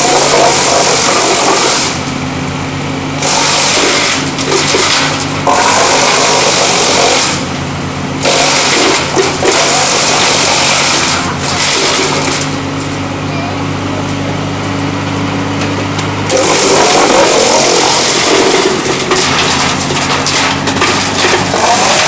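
Yulong XP1300 mobile wood chipper, driven by a 110 hp diesel engine, running steadily while logs are fed in. Each log brings a loud stretch of chipping noise over the engine. Between logs the chipping stops and only the engine's hum remains: briefly about two seconds in, again around eight seconds, and for a longer spell a little past the middle.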